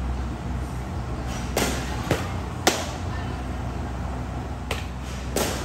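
Sharp pops of softballs smacking into catchers' mitts, about five in a few seconds, the loudest about halfway through, over a low steady hum.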